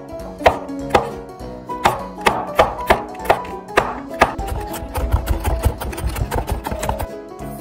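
Chef's knife chopping garlic cloves on a bamboo cutting board: separate knocks about every half second, then fast mincing strikes from about four seconds in that stop near the end. Background music with plucked strings runs underneath.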